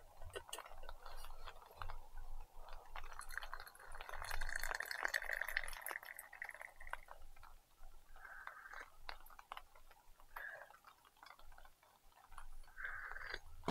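Liquid poured from a stainless steel flask into a cup, one longer pour followed by a few short ones, with light metal clicks and taps of flask and cup.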